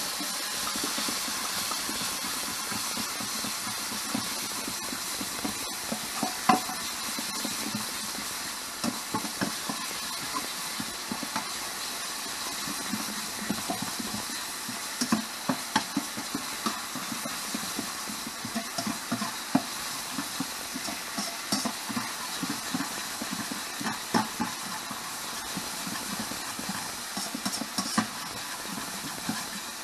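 Food sizzling in a frying pan with a steady hiss, while a utensil stirs it and knocks against the pan in many short, irregular taps.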